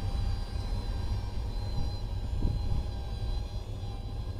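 Electric seat motors of a Chrysler Town and Country's power-folding rear seats whirring steadily as the seats move, over a low, steady hum.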